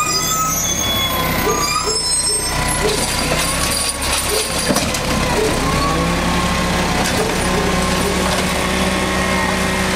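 Garbage truck's diesel engine running while its automated side-loader arm grabs, lifts and tips a wheeled recycling bin into the hopper, with a wavering whine over the engine. The engine speeds up about six seconds in as the arm lifts and dumps the bin.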